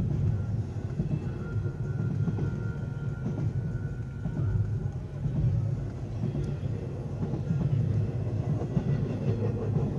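Norfolk Southern intermodal freight train rolling past a road crossing, heard from inside a car: a steady low rumble of wheels on rail.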